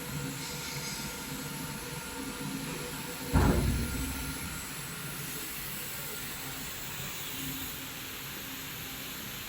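Steady hiss with a faint hum, broken by one loud thump about three and a half seconds in that fades over about a second.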